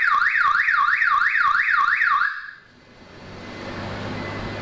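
Car alarm siren sounding a fast repeating rising whoop, about three sweeps a second, that cuts off about two seconds in. A steady low hum follows.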